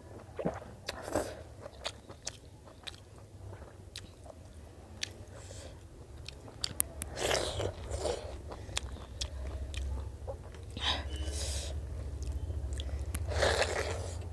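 A person eating close to the microphone: chewing and biting with many sharp crunches and clicks, and a few louder wet bursts. A low steady hum runs underneath.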